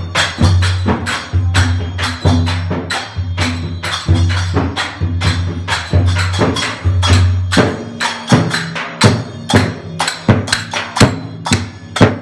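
Large hand-held frame drums beaten in a fast, even rhythm, about three strokes a second, with a deep boom under the strokes.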